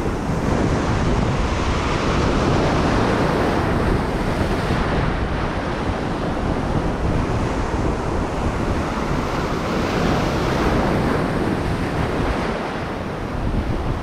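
Ocean surf washing over a shallow reef, with steady white-water hiss and wind buffeting the microphone.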